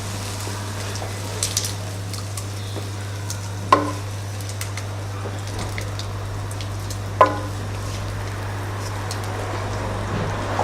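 Cod and egg omelette mixture frying in olive oil in a saucepan, a steady sizzle over a low hum. There are two short ringing knocks about three and a half seconds apart.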